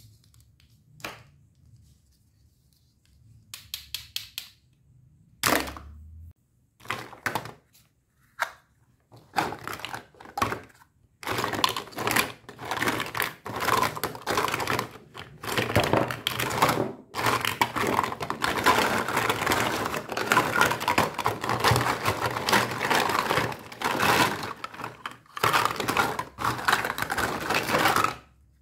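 Hollow plastic toy fruit and vegetable pieces knocking and clattering against each other in a cardboard box as hands rummage through them. A few separate knocks at first, then a dense, continuous clatter from about nine seconds in.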